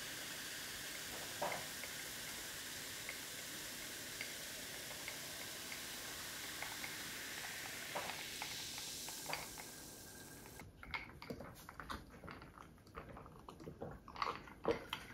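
Cola fizzing in a glass just after being poured, a steady hiss of bubbles with small scattered pops. For the last few seconds it gives way to irregular gulps and clicks as the cola is drunk.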